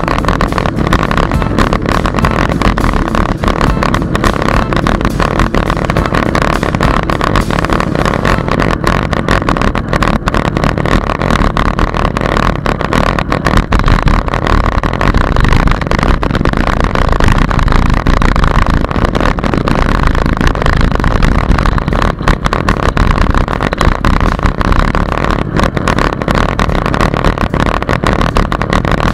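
Loud, steady wind and rolling noise on a bicycle-mounted camera's microphone while riding on a paved path, with many small rattles and knocks throughout.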